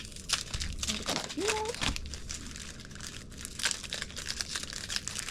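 Crinkling of plastic and foil packaging as Pokémon booster packs are handled, an irregular run of crackles. A brief voiced sound rises about one and a half seconds in.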